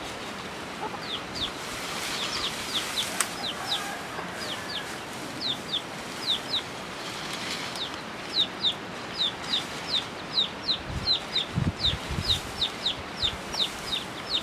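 Chicks peeping: short, high, falling notes, often in pairs, repeating and coming more often in the second half.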